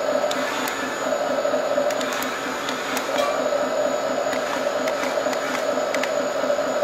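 Small electric drive motors and gearboxes of a radio-controlled wheel loader and tracked excavator whining steadily, straining as the loader's bucket shoves the excavator and tips it up, with scattered small plastic clicks.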